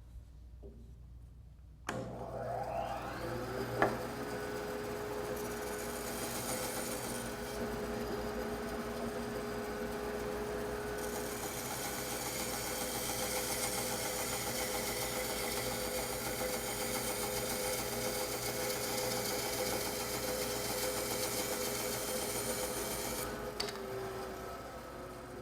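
Laguna bandsaw switched on, its motor winding up to speed over about two seconds, then running steadily. From about eleven seconds in the blade cuts through a thick glued-up wooden block, adding a hiss, for about twelve seconds. The saw is then switched off and winds down near the end.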